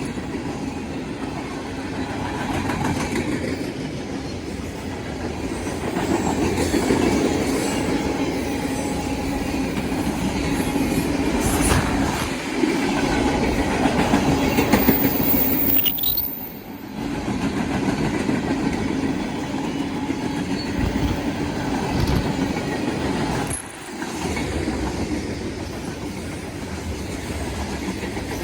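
Freight train cars rolling past on the track, a steady loud noise of wheels on rail that drops briefly twice in the second half.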